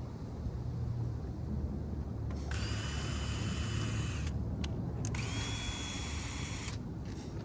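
Power drill running in two bursts of about two seconds each, its motor whine climbing as it spins up and then holding steady, over a steady low rumble.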